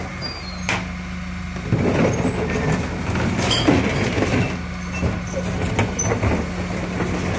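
DAF CF refuse truck idling with its Terberg OmniDEL hydraulic lifter running as it raises and tips a green wheelie bin into the rear hopper. A steady low engine and pump tone sounds for much of the time, with several knocks and clatters from the bin and lifter.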